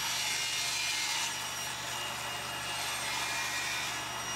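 Cabinet table saw running steadily with a constant motor hum while its blade crosscuts a walnut board on a sled; the cut is loudest in the first second or so, then the saw runs on.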